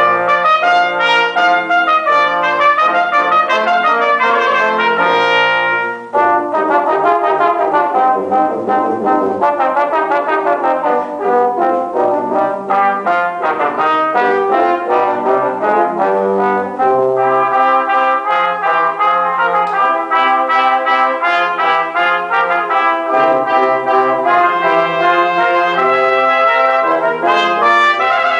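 Brass quintet of two trumpets, French horn, trombone and tuba playing a piece together, with a brief break between phrases about six seconds in.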